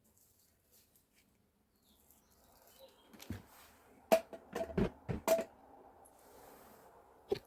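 A handful of sharp clicks and knocks, several in quick succession about three to five seconds in and one more near the end, after a couple of seconds of near silence.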